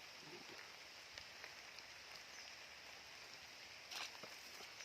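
Faint, steady patter and hiss of light rain, with a few tiny ticks and a brief louder noise about four seconds in.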